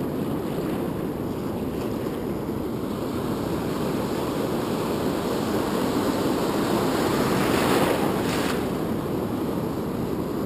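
Ocean surf breaking and washing through the shallows, a steady rushing that builds to a louder swell about three-quarters of the way in as a wave breaks, then eases.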